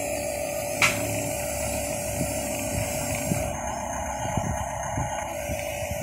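Small electric gear motors of a toy RC bulldozer and RC car whining steadily. There is one sharp click about a second in, and irregular low knocking and scraping from the tracks and wheels on the dirt and sticks.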